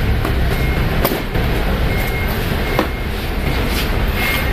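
A truck's engine runs steadily with a low rumble, while a reversing alarm gives short high beeps every second or two. A few sharp clicks and knocks come from the carton and its plastic strapping being handled.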